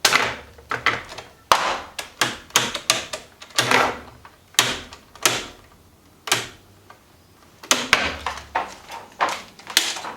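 New aluminium flap being worked down and up by hand, clacking and clicking into place over and over. The knocks come at an uneven pace of a few a second, with a lull of a second or two midway.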